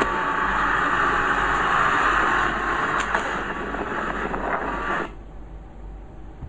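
Diesel engine of earthmoving machinery running hard, with a dense mechanical din; about five seconds in it drops suddenly to a quieter, duller engine sound.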